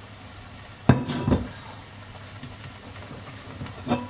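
Stainless-steel stand-mixer bowl being lifted off its base and handled: a sharp metallic clunk about a second in, a second knock just after, and another clunk with a brief ring near the end.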